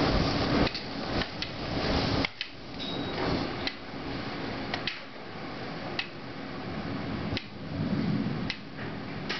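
Thunderstorm heard from indoors: a rolling rumble of thunder that drops off sharply about two seconds in and swells again briefly near the end, over a steady rain-like hiss with scattered sharp ticks.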